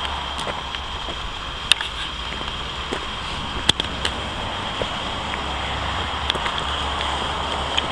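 Steady wind noise on the microphone, a low rumble with a hiss above it, with a few sharp ticks scattered through.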